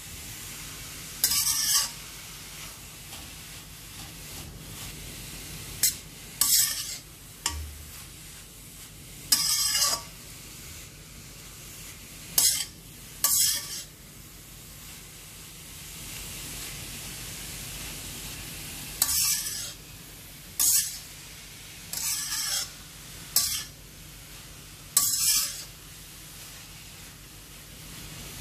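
Grated carrots sizzling in ghee in an iron kadhai while a spatula scrapes and tosses them. About a dozen loud scraping strokes come every few seconds, with a pause in the middle. This is the dry-roasting stage of carrot halwa, before the milk goes in.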